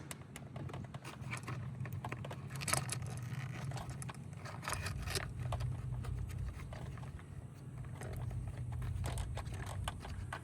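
Scattered small clicks and scrapes of hand tools and small parts being worked under a car's hood, over a steady low hum.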